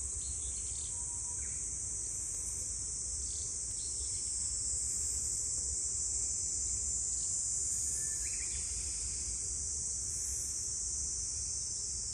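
Steady high-pitched chorus of summer insects, shrilling on without a break, over a faint low rumble.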